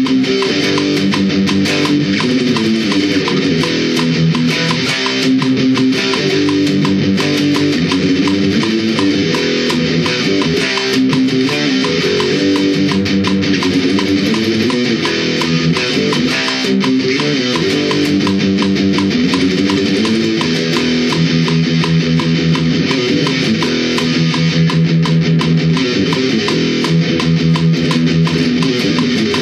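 Heavily distorted electric guitar playing a heavy metal riff with fast, steady picking, the notes shifting continuously.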